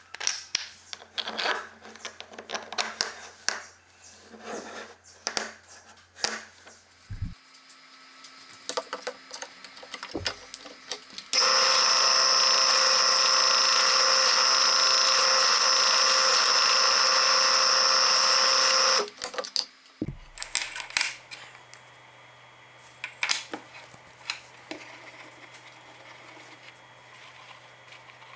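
A small power tool runs steadily for about seven and a half seconds, with a high whine, then stops. Before and after it come scattered clicks and knocks of workpieces and tools being handled.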